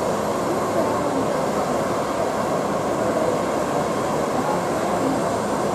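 Twin-engine propeller plane taxiing, its engines a steady, even noise carried over from across the airfield.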